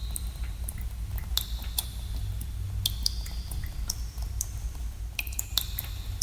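Water drops falling in a cave, landing irregularly about twice a second as short pitched plinks with a brief ring, over a steady low rumble.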